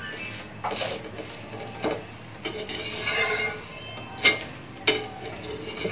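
Steel spatula scraping and knocking on a nonstick dosa tawa while the dosa is worked. There is a longer scrape about three seconds in and two sharp clinks near the end.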